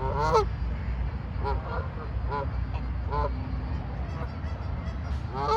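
Geese honking: a scattering of short honks, the loudest just after the start and near the end, over a steady low rumble.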